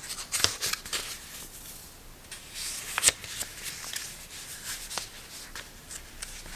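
Paper sticky-note pads handled close up: pages flicked and riffled, with sharp paper snaps and light rustling, the loudest snap about three seconds in.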